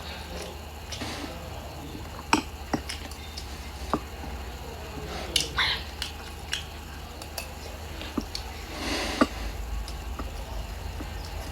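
Close-up eating sounds: chewing and mouth noises, with scattered sharp clicks of utensils against a dish and a short, louder crunchy stretch about nine seconds in.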